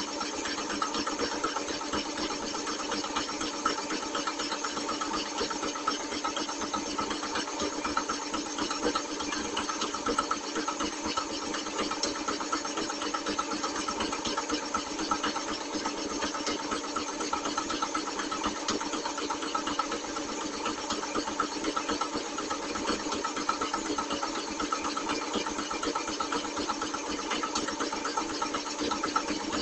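Power hacksaw running steadily, its bow frame stroking the blade back and forth as it cuts through a bundle of clamped steel bars.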